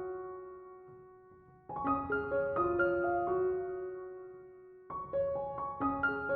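Soft background piano music: short phrases of a few notes that ring on and fade away, with a new phrase starting twice.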